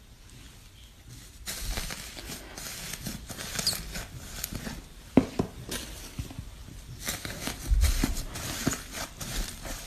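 Slime being handled: irregular sticky crackling with small pops and a few sharper clicks, starting after about a second and a half of near quiet.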